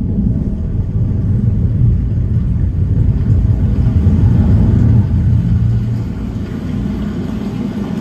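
Nakamichi Shockwafe Ultra soundbar system playing a demo soundtrack loudly, mostly deep bass from its subwoofers, easing off a little about six seconds in.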